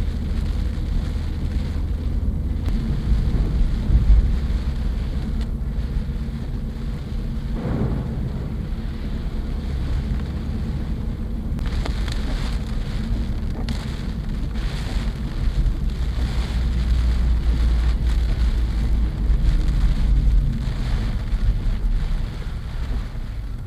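Typhoon rain and wind beating on a moving car, heard from inside the cabin over a steady low rumble of road and wind noise. The hiss swells in spells around the middle.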